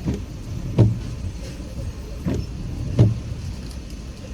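Car windshield wipers sweeping, with a low thump at each end of the stroke: pairs of thumps about three-quarters of a second apart, repeating over the steady hum inside the car.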